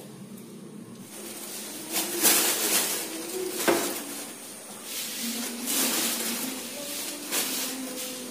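Thin plastic bag crinkling in irregular bursts while dried red chillies are picked out of it by hand.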